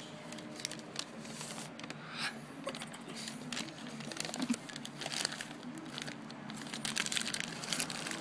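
Irregular soft crinkling and rustling clicks, coming thicker near the end, over a low steady hum.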